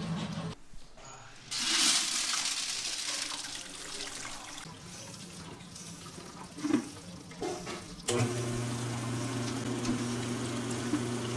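Water running from a tap into a sink, starting suddenly and easing off over a few seconds. From about eight seconds a steady low hum takes over.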